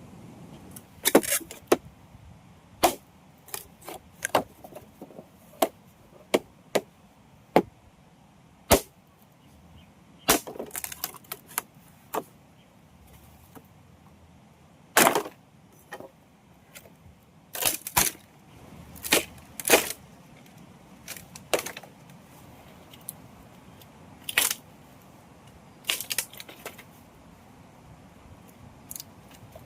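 Wood cracking and knocking in irregular sharp strokes, a couple of dozen of them, some single and some in quick clusters.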